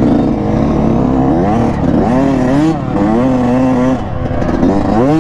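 Yamaha YZ125 two-stroke dirt bike engine revving up and down while riding, its pitch rising and falling every second or so as the throttle is worked.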